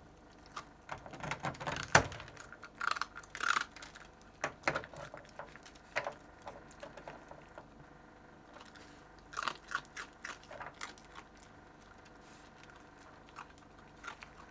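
A red fox crunching and chewing a dry rusk, in irregular runs of crisp crunches: the loudest bite about two seconds in, another burst of crunching past the middle, and only a few faint crunches between and near the end.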